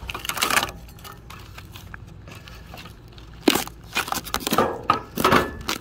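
Stiff putty knife prying a metal plate off hardened expanding foam, with crackling and tearing as the foam breaks. There is a short burst just after the start, then a quieter stretch, then a run of louder crackles and knocks from about three and a half seconds in.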